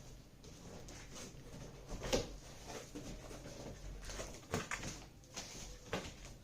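A cardboard box being opened with small scissors: irregular snips, scrapes and rustles of the cardboard and packing, louder about two seconds in and again in the second half.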